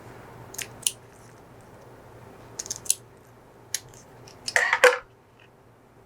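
Wire cutters snipping beading wire and being handled: scattered sharp clicks, then a louder quick run of clicks about four and a half seconds in.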